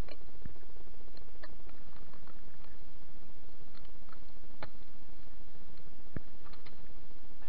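Scattered small clicks and taps of hands handling fish in a plastic bucket and a plastic water bottle, over a steady background hiss and low rumble.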